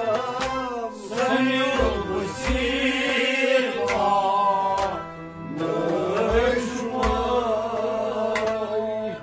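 Kashmiri Sufi devotional song: a hand-pumped harmonium plays held and moving notes under a man's singing voice, with low drum strokes now and then.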